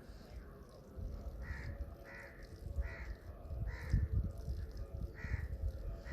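Crow cawing repeatedly, about five short caws in a row, over a low rumble.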